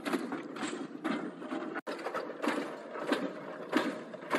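Replica of Trevithick's Pen-y-Darren steam locomotive running, its single-cylinder engine, flywheel and gearing working in a regular mechanical beat of about three strokes every two seconds.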